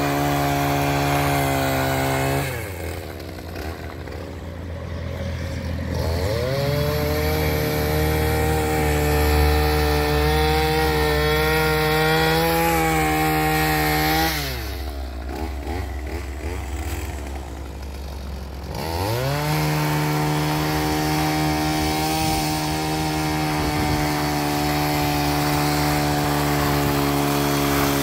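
Echo PAS two-stroke powerhead driving a power paddle sweeper attachment at full throttle. Twice the throttle is let off and the engine falls to idle for a few seconds, then climbs back to full speed.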